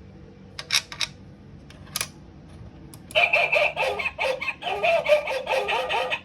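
A few sharp clicks, then about three seconds in a shape sorter toy's electronic chicken sound effect starts up, a fast run of repeated calls.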